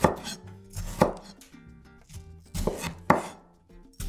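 Chef's knife cutting a tomato into wedges on a wooden cutting board: four separate strokes, each ending in a sharp knock of the blade on the board.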